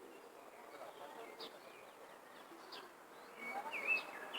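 Birds chirping: a few short, high, falling chirps, then a louder warbling phrase of song near the end.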